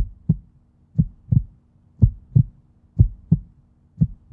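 Heartbeat sound effect: pairs of deep thumps, lub-dub, about once a second over a faint steady hum.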